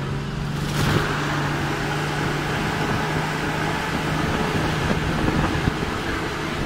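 Off-road 4x4 driving along a rough dirt track, heard from inside the cabin: the engine runs with a steady hum, with road and rattle noise over it and a brief rush of noise about a second in.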